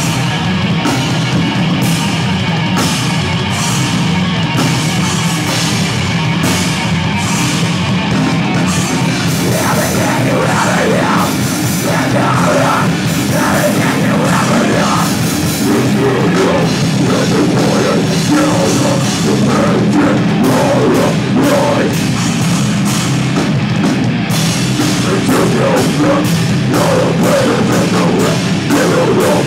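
A rock band playing live and loud: electric guitars, bass guitar and a drum kit, in a heavy metal style. From about ten seconds in, a singer's voice comes over the band at times.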